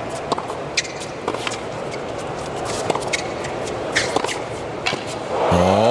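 Tennis rally on a hard court: sharp pops of the ball struck by rackets and bouncing, about one a second, over a steady crowd murmur.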